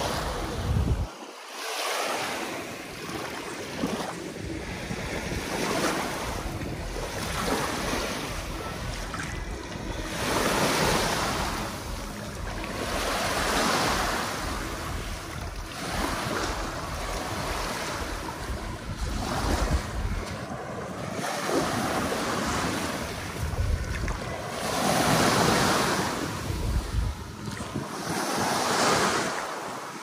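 Sea waves breaking and washing up the beach, swelling and falling back every few seconds, with wind buffeting the microphone.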